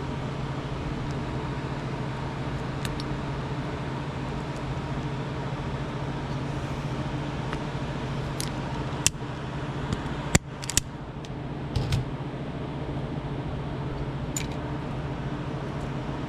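A steady low mechanical hum, like a fan or motor running, with a few sharp clicks and taps about nine to twelve seconds in.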